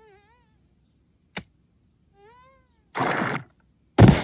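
Cartoon vocal sounds and effects: a high, wavering cat-like whine trailing off, a sharp click, a short rising whine, a hissing burst, then a loud sudden thud near the end, the loudest sound, as the character collapses.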